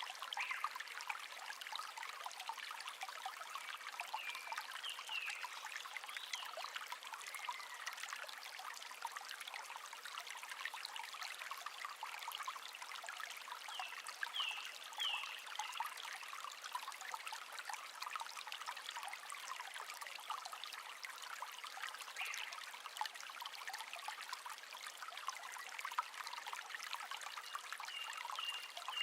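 A small brook babbling steadily, with a few short high bird chirps now and then.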